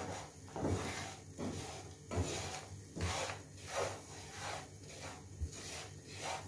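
Wooden spatula scraping around a nonstick frying pan, stirring lumps of jaggery melting in ghee, in an even back-and-forth rhythm of a little more than one stroke a second.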